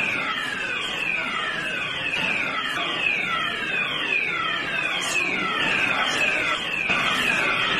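Electronic alarm sounding a falling tone over and over, about two a second.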